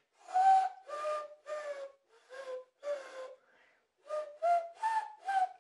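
Inward tooth whistle, a beatbox whistle drawn in through the teeth: about nine short notes, each a clear tone over a hiss of in-drawn air. The pitch falls over the first five notes and, after a short pause, rises over the next few.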